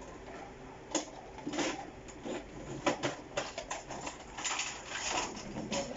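Small plastic toy pieces and capsules being handled: irregular clicks, taps and light rattling, with a couple of brief scraping sounds.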